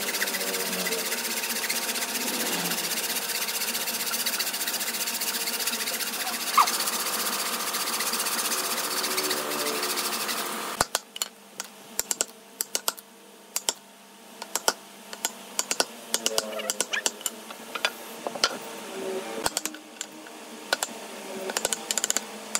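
A wooden bow saw cutting through a table's wooden rail, a steady rasp that stops abruptly about eleven seconds in. Then a wooden mallet knocks a wood chisel into a board in short runs of sharp taps, chopping out a notch.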